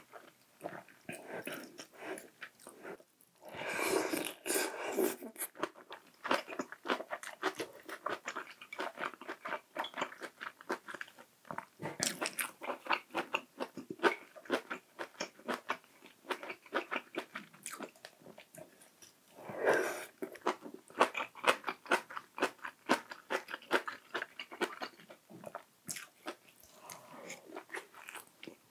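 Close-miked chewing and biting of a person eating: a dense run of quick, wet, irregular mouth clicks, with two louder, longer noisy bursts about four seconds and twenty seconds in.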